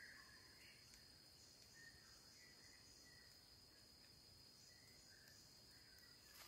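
Near silence: faint forest ambience with a steady high insect drone and a few faint, short bird chirps.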